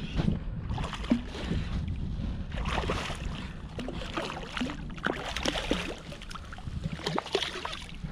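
Water splashing irregularly as a hooked fish thrashes at the surface and is drawn to the angler's hand, while a spinning reel is cranked. Wind rumbles on the microphone throughout.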